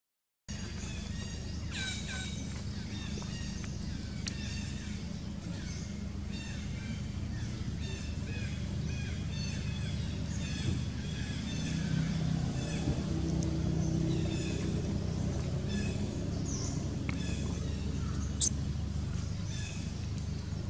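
Outdoor ambience of birds chirping over and over, with a steady low hum underneath that swells for a few seconds midway, and one sharp click near the end.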